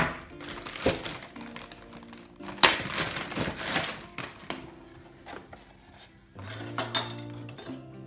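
Background music over handling noises: a plastic bag rustling for about a second around three seconds in, and a few short knocks and clinks of things set down.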